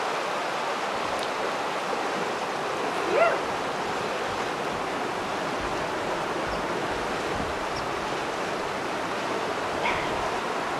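Steady rush of fast-moving water from a tsunami surge flowing through a tidal lagoon. A short bark-like call rises over it about three seconds in, and a fainter one comes near the end.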